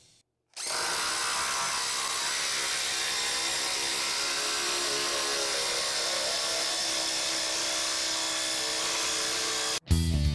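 DeWalt DCF887 20V brushless impact driver hammering steadily as it drives a 1/2 by 8 inch lag screw into wood, in footage sped up four times. It starts about half a second in and cuts off suddenly just before the end.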